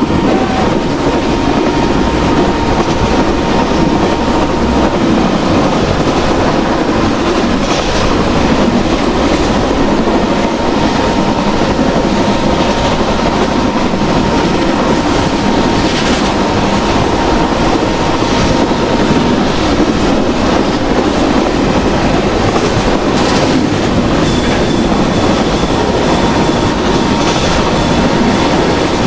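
Passenger train running steadily along the track with a continuous rumble, its wheels clattering over rail joints now and then, and a faint steady whine.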